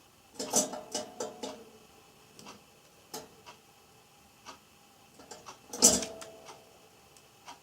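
Java sparrow pecking and tugging at pea sprouts: irregular beak clicks and rustling of the sprouts, with a cluster of clicks near the start and a louder knock about six seconds in.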